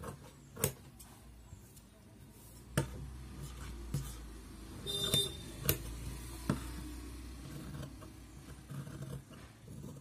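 Scissors cutting through blouse lining fabric along a paper pattern on a wooden table: soft snipping with a few sharp clicks of the blades.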